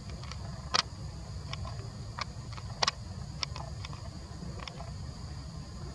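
Steady high drone of forest insects over a low rumble, with scattered short sharp clicks. Two of the clicks are louder, one just under a second in and one just under three seconds in.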